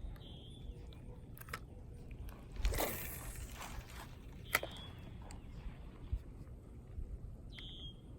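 Wind rumbling on the microphone, with a bird's short high chirps three times: just after the start, about four and a half seconds in, and near the end. A brief rushing hiss comes about three seconds in, followed by a sharp click.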